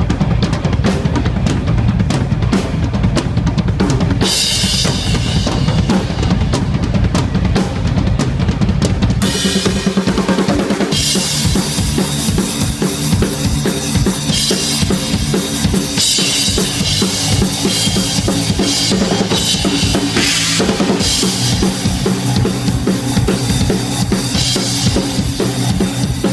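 Live drum kit playing loud at a band sound check, with heavy kick drum and snare hits. Cymbals come in about four seconds in, and steady pitched instruments join around ten seconds in.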